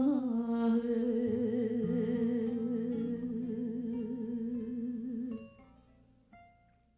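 Background music: one long held note with a wide vibrato over low sustained accompaniment, fading out about five seconds in, then a few soft plucked notes.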